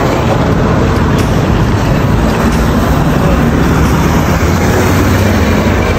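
Road traffic passing on a multi-lane road: a steady rumble of engines and tyres, with a vehicle's engine hum coming through in the second half as a minibus drives by.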